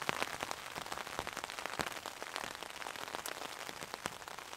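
Rain pattering on a tarp: many small, irregular drop taps over a soft hiss.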